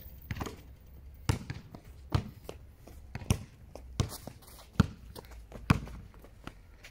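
A basketball bouncing on a court, about once a second and loudest near the end, with fainter taps between the bounces.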